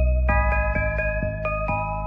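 Sped-up nightcore song playing: a quick run of plucked notes, a few a second, over a steady deep bass.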